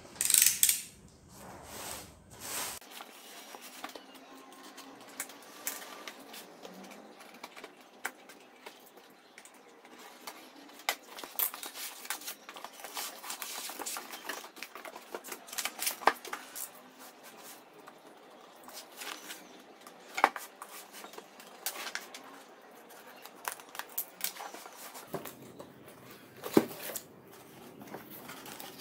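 Cardboard boxes being handled and opened by hand: flaps and cardboard rustling and scraping, with scattered sharp knocks of the boxes against a wooden table. There is a louder tearing burst about half a second in.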